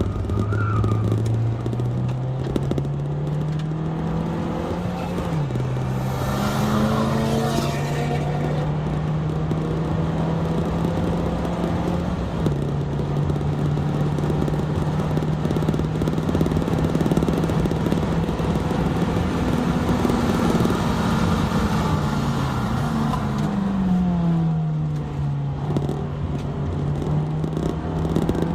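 Honda Fit Hybrid RS's 1.5-litre four-cylinder engine running hard on track with tyre and wind noise: the engine note climbs and drops sharply at upshifts about five and twelve seconds in, holds steady, then dips and climbs again near the end.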